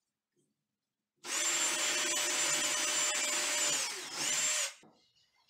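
Cordless drill boring a 3/8-inch hole into a wooden vanity cabinet. It runs with a steady whine from about a second in for nearly three seconds, slows, then gives one short second burst before stopping.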